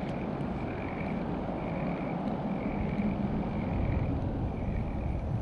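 Wind rumbling on a chest-mounted camera's microphone while a fishing reel is cranked, its gears giving a faint whir that comes back about once a second.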